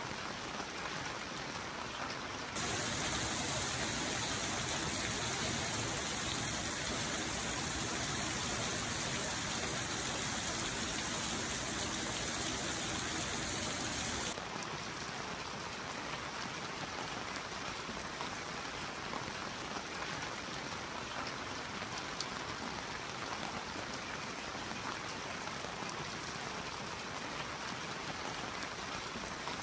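Steady rain falling on pavement and grass, an even hiss of drops. About two and a half seconds in it cuts abruptly to a louder, brighter downpour, which drops back just as abruptly about fourteen seconds in.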